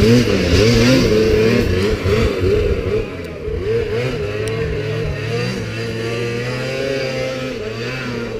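Snowmobile engine revving hard, its pitch rising and falling with the throttle, loud for the first three seconds. It then runs steadier and quieter as a sled climbs the steep hill.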